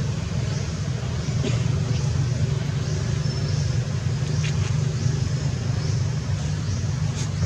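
Steady low rumble of background noise, with a few faint high chirps and soft clicks over it.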